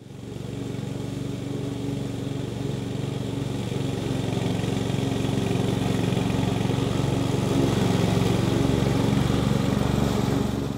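Petrol engine of an Oleo-Mac ride-on lawn mower running steadily while it cuts grass, getting louder over the first few seconds.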